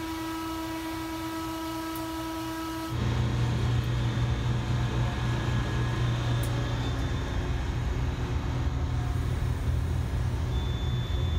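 Compressed natural gas station in operation, with gas flowing through the dispenser and compressors building pressure while vehicles refuel. It starts as a steady whine of several tones, then about three seconds in jumps to a louder, steady low rumble.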